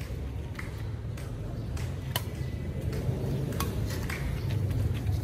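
Badminton rackets striking a shuttlecock in a rally: sharp, separate pings roughly once a second. A low rumble of road traffic builds underneath from about halfway through.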